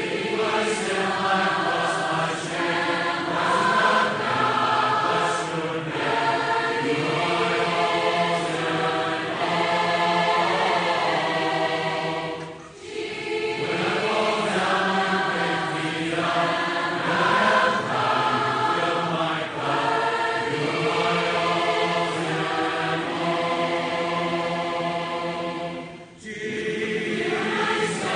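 Choral singing in long, held phrases, with a brief break about halfway through and another near the end.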